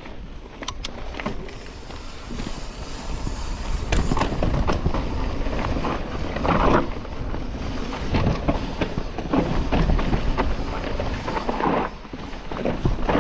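Mountain bike descending a dry dirt trail: tyres rolling and skidding over dirt and rocks, with rattling knocks from the bike and wind on the microphone, getting louder about 4 seconds in.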